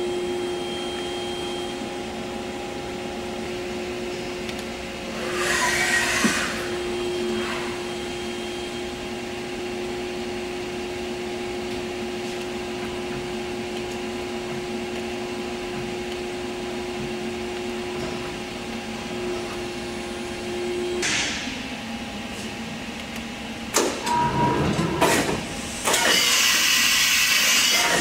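Fadal 914-15 CNC vertical machining center powered up and running with a steady hum and a steady tone. The tone stops about three-quarters of the way through. Near the end come a few sharp knocks and a loud rush of noise lasting about two seconds.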